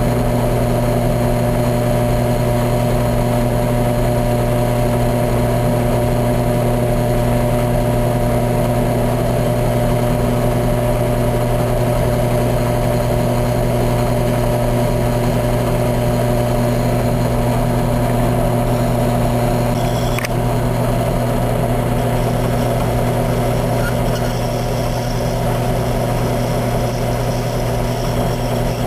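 Drill press motor running steadily, spinning a plastic pinewood derby wheel in its chuck while a hand-held blade shaves the wheel thinner. A brief click about twenty seconds in.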